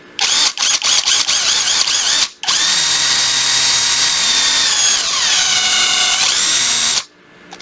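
Panasonic EZ7544 brushed cordless impact driver running unloaded. The trigger is blipped several times, then held for long runs with a short stop about two and a half seconds in. The motor slows and speeds up again before stopping near the end. It runs smoothly, with no hammering.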